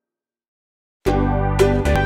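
Silence for about the first second, then background music cuts in abruptly, with a heavy bass and regular percussive hits.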